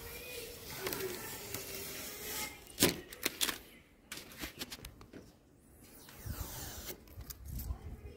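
Thin plastic protective film on a tractor's painted bodywork crinkling and rustling as it is peeled and handled by hand, with a few sharp clicks about three seconds in, then quieter scraping and rubbing at the panel.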